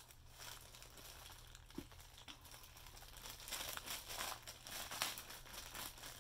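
Clear plastic bag crinkling and crackling as it is handled and worked open, busier and louder in the second half.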